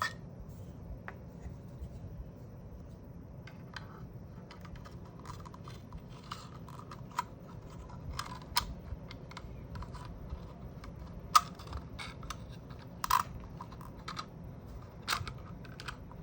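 Scattered small clicks and taps of plastic magazine parts and a spring being handled, with sharper clicks about eleven and thirteen seconds in, over a steady low hum.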